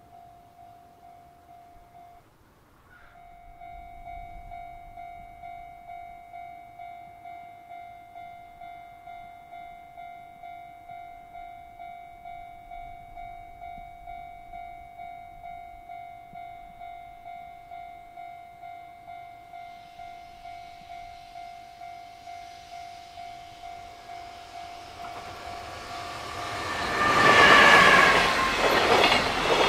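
Japanese level-crossing alarm ringing with a steady repeating electronic tone, a little over one ring a second. A JR Freight container train approaches from about twenty seconds in and passes at speed close by, its cars and wheels loudest near the end.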